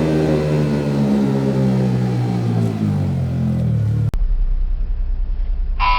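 Motorcycle with a loud aftermarket exhaust, its engine note falling steadily over about four seconds as the revs drop. It then cuts off abruptly to a low hum, with a short pitched tone starting near the end.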